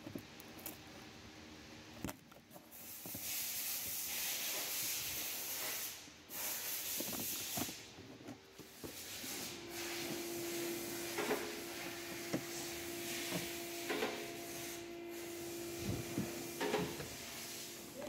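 Scattered clicks and knocks of hands handling and fitting a car door latch and lock actuator assembly inside a rear door, over a steady hiss. A steady hum joins for about seven seconds in the second half.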